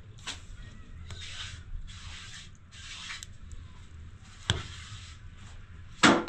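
Three or four short scraping strokes, hand work rubbing a rough surface, then a sharp click and a louder knock near the end.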